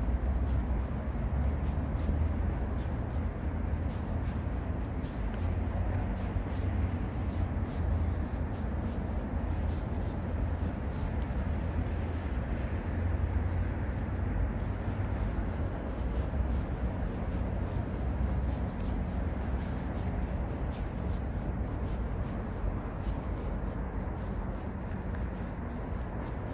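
Steady outdoor city ambience: a continuous low rumble with a fainter hiss above it.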